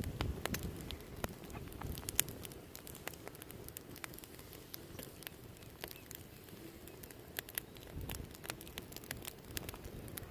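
Wood fire crackling, with many sharp, irregular pops and clicks over a low steady noise.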